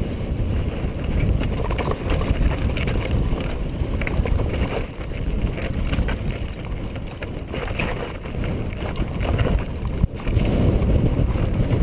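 Wind buffeting the microphone of an action camera on a mountain bike riding over a loose, rocky trail, with constant rattling and knocking from the bike and its tyres on the stones.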